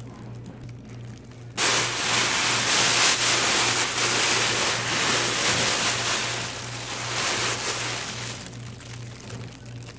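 Aluminium foil and plastic wrapping crinkling and rustling as they are pulled out and crumpled by hand. It starts about a second and a half in and eases off near the end.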